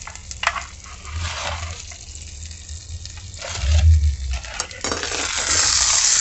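Knocks and scrapes of a metal roasting tray handled and pulled out over the brick floor of a clay oven, with dull thumps loudest about four seconds in. About five seconds in, a steady sizzle starts: the honey glaze and juices still bubbling in the hot tray.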